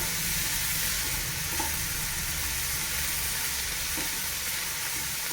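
Butter sizzling steadily under bread pizza frying on a hot tawa, a continuous hiss with a few faint crackles.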